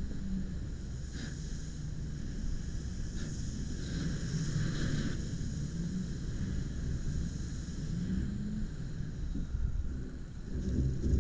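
A steady low engine rumble, its pitch wavering slightly, with wind noise on the microphone.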